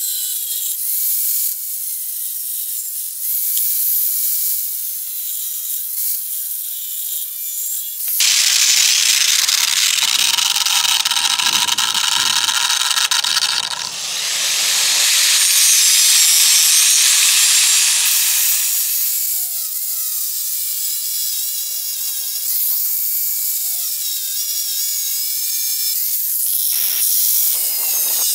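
Angle grinder with a thin cutoff wheel cutting through a steel ratchet, the motor's whine bending up and down as the wheel bites. A louder, harsher stretch of cutting noise in the middle.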